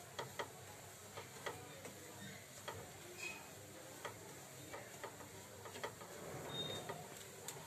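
Wooden spatula stirring semolina roasting in ghee in a non-stick kadai: soft scraping with irregular light taps as the spatula knocks the pan.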